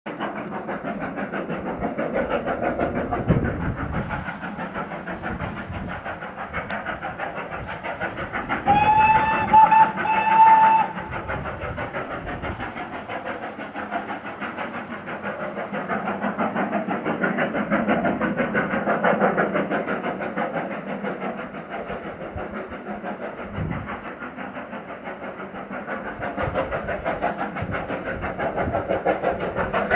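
GWR Castle class four-cylinder 4-6-0 steam locomotive Nunney Castle working hard up a steep bank, its exhaust beating in a rapid, even rhythm. Two blasts on its whistle, close together, about nine seconds in.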